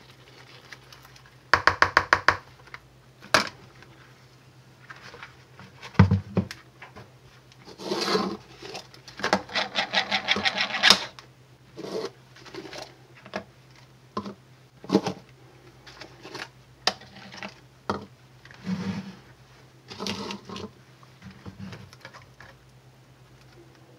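Plastic clicking and clattering as pink plastic cups and a plastic basin are handled on a countertop: a quick run of sharp clicks about two seconds in, a longer, denser run of clicks a few seconds later, then scattered single knocks.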